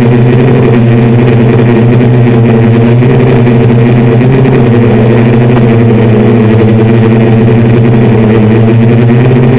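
Six brushless motors with 10-inch propellers on a hand-built DJI F550-style hexacopter, buzzing steadily in flight and heard very loud from the onboard camera beside the props. The pitch wavers slightly about halfway through.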